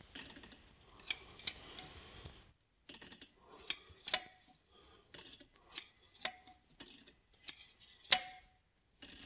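A large screwdriver levering the flywheel of a Hanomag 44D's four-cylinder diesel round by hand: sharp metallic clicks and scrapes at uneven intervals, often in pairs, a few ringing briefly, as the engine is inched toward top dead centre for valve adjustment.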